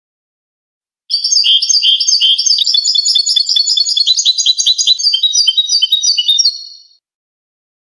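European goldfinch singing a clean song: one long phrase of fast, repeated, high twittering notes that starts about a second in and runs for about six seconds before fading out.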